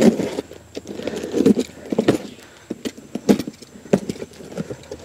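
Cardboard box being slit open with a utility knife and its flaps pulled back: irregular knocks, scrapes and rustles of handled cardboard, about one or two sharp knocks a second.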